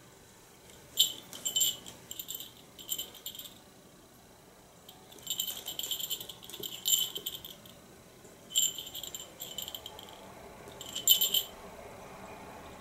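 A small bell jingling, shaken in four bouts of quick rings.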